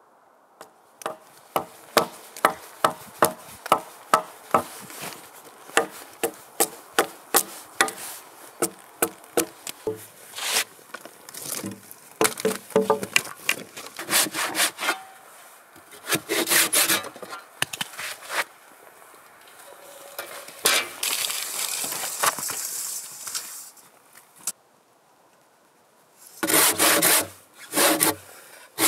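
Hand saw cutting across the end of a squared log to form a dovetail joint, in quick even strokes of about two a second that turn uneven partway through. The sawing pauses briefly near the end, then resumes with strong strokes.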